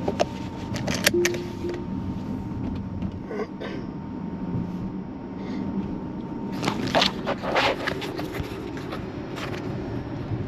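Road and tyre noise inside a Tesla Model X's cabin while driving, with a few knocks and scraping handling sounds and one brief tone about a second in.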